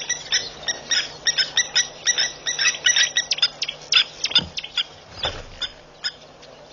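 Blacksmith lapwings (blacksmith plovers) giving rapid, sharp metallic 'tink' calls, several a second, alarm calls at a threatened nest. The calls thin out and stop about five seconds in.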